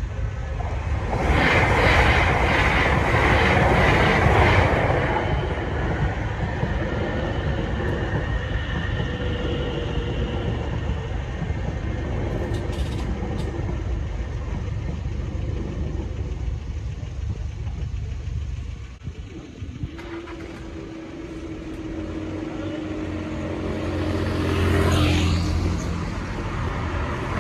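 A train passing over a level crossing: a loud rush of wheel and rail noise from about one to five seconds in, then a lower steady rumble. Later a road vehicle's engine hums with a steady low tone, rising in pitch and growing louder near the end.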